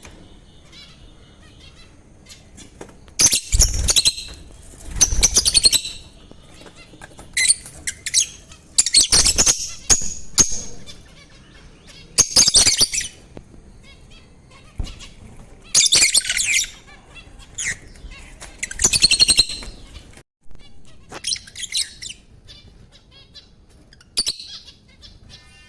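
Pet lovebirds calling in repeated bursts of shrill, high-pitched chirping and screeching, each burst up to about a second long and coming every one to three seconds.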